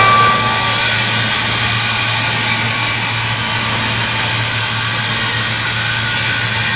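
Overhead bridge crane running as it carries a steel girder, a steady loud mechanical drone and hiss over a constant low hum. The tail of a warning horn fades out in the first second.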